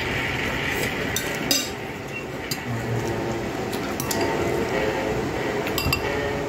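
A handful of sharp clinks of dishes and cutlery at a meal, over steady background noise.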